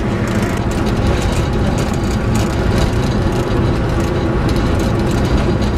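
Steady engine and road noise of a moving vehicle, heard from inside the cabin, with a low hum underneath.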